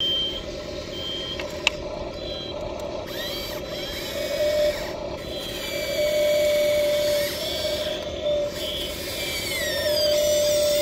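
Electric motors and gearing of an RC excavator whining as it swings and raises its boom and bucket over a model dump truck and back down. The whine comes and goes and glides up and down in pitch with each movement, with one sharp click a little under two seconds in.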